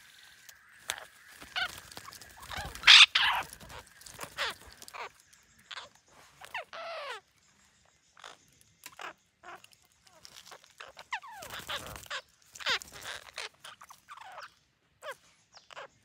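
Alexandrine parakeets squawking: a string of harsh, short calls, many falling in pitch, with the loudest call about three seconds in.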